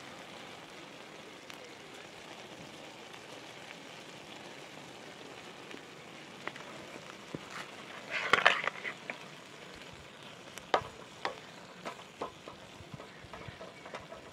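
Meat and onions frying in a sac pan, sizzling steadily. About eight seconds in the sizzling and stirring briefly get louder, then a utensil clicks against the pan now and then.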